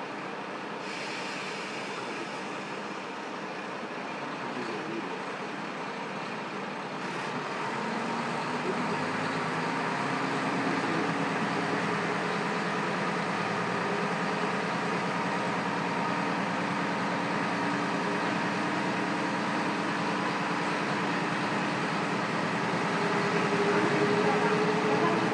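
KiHa 125 diesel railcar's engine heard from the seat directly above it, running low and then, about eight seconds in, getting louder with its pitch slowly climbing as it powers the car away. A high hiss is heard during the first several seconds.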